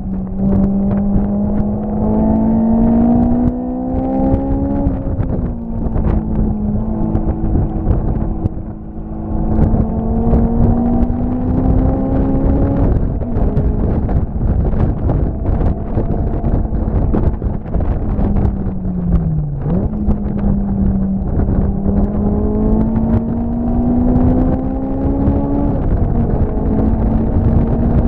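A vehicle engine running hard under load, its pitch climbing slowly and then dropping back, three times over, with a dip between the second and third climbs. A rumbling rush of wind runs under it.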